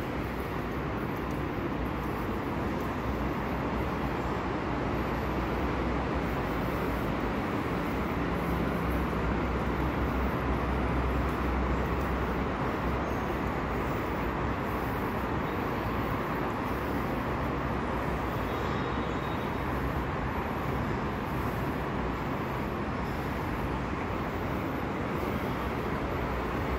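Steady low rumble and hiss of background noise at a railway station, swelling slightly midway, with no distinct event.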